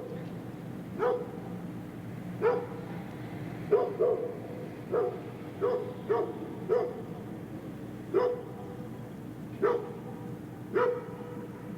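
A distant dog barking in single, irregularly spaced barks, about eleven of them, with a steady low hum underneath.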